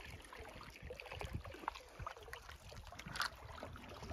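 Canoe being paddled on calm water: soft paddle dips and water trickling along the hull, over a low wind rumble on the microphone, with one louder tap about three seconds in.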